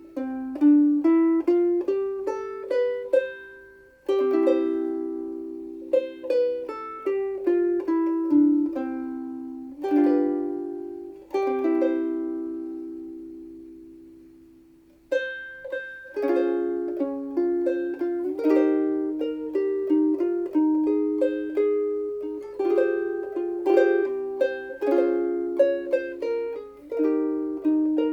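Seilen SLVS-255 soprano ukulele with a curly Hawaiian koa body, played solo: picked melody notes and chords, with some chords left to ring and die away. About halfway through the playing becomes a busier, steadier run of notes.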